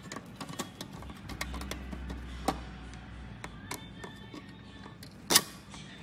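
Background music under irregular clicks and taps of a plastic tip-over switch and appliance base being handled, with one sharp loud click about five seconds in.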